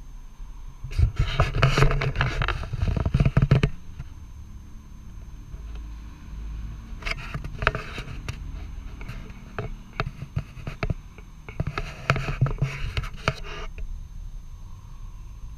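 Handling noise from a handheld action camera: three bursts of scraping and rubbing against the microphone, about a second in, near the middle and again toward the end.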